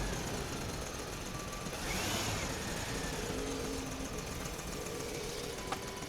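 Steady mechanical running noise with faint whining tones, and one short whine that rises and falls about two seconds in.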